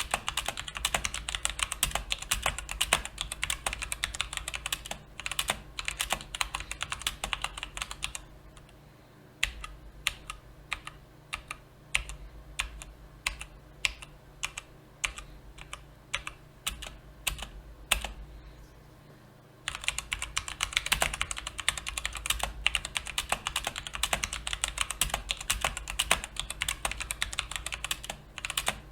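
Typing on a mechanical keyboard with brown (tactile) switches: a fast clatter of keystrokes that slows about a third of the way in to separate key presses, about two a second. Near the two-thirds mark it returns to fast typing.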